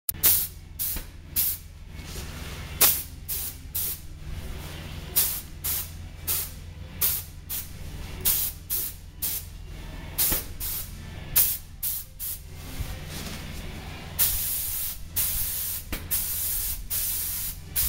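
Airmix (air-assisted airless) spray gun, fed by a Binks Raptor Max 4.32 pump, hissing in short repeated bursts as the trigger is pulled and released. From about three-quarters of the way in the bursts turn into longer passes of about a second each. A steady low hum runs underneath.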